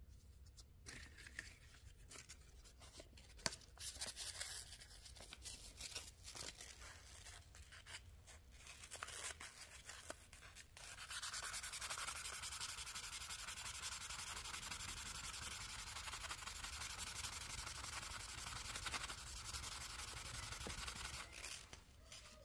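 Abrasive sanding on a rusty old knife. Irregular scraping strokes come first, then steady, continuous sanding starts about halfway through and stops shortly before the end.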